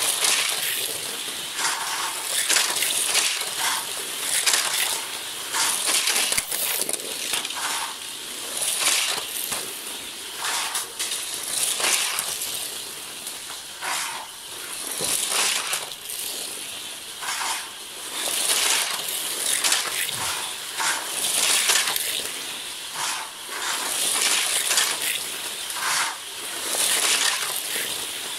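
Matchbox Scorpion toy cars, each driven by a small electric motor, running laps on plastic track. The motor and wheel noise swells and fades each time a car passes close by, every second or two.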